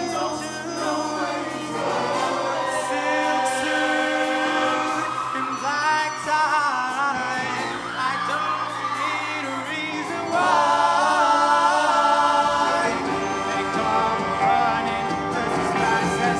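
Men's show choir singing in harmony over instrumental accompaniment, growing louder about ten seconds in.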